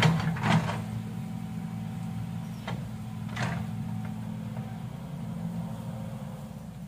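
Excavator diesel engine running steadily, with a few sharp clanks in the first second and two more around three seconds in.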